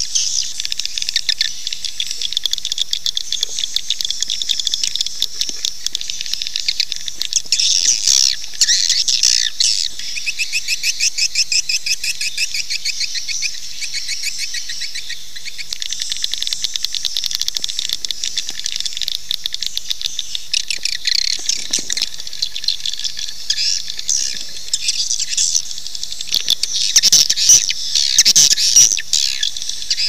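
Swiftlet call recording: a dense, continuous stream of rapid high-pitched twittering chirps and trills. This is a lure call, played to draw swiftlets into a nesting house.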